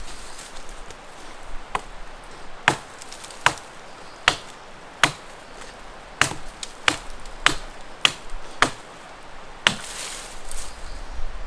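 Wood being chopped: about eleven sharp blade strikes into wood at an uneven pace, a little under a second apart.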